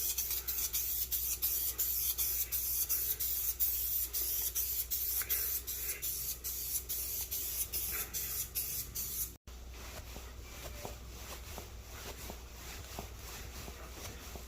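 Rhythmic scrubbing on a stainless steel refrigerator, about three hissing strokes a second, that stops abruptly about nine seconds in; quieter light clicks and rustling follow.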